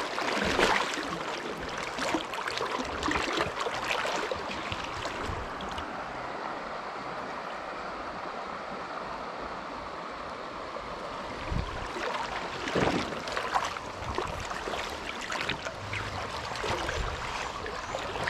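Shallow stream water running steadily over gravel, with irregular splashing and sloshing from legs wading through it.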